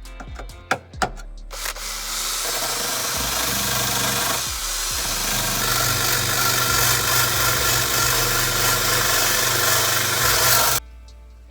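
Power grinder running against the rusted sheet-metal body of a Toyota LandCruiser 80 Series, grinding the rust back around the holes below the rear quarter window. A couple of sharp clicks come first; the tool starts about a second and a half in, runs steadily, and cuts off suddenly near the end.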